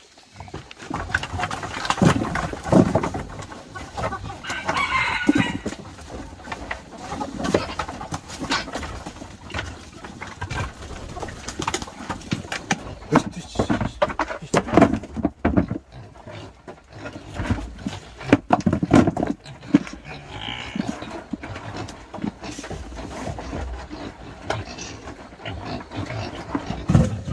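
A rooster crowing, once about four seconds in and again about twenty seconds in, over repeated knocks and clatter.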